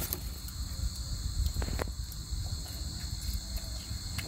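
Steady high-pitched chorus of crickets, with a low rumble underneath and a few faint clicks.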